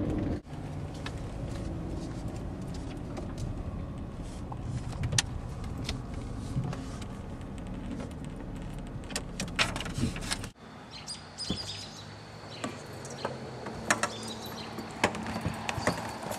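Steady low road and engine rumble inside a moving car, with a few light clicks. About ten seconds in it cuts off to a quieter stretch of scattered clicks and knocks from car doors as the parked car is got out of.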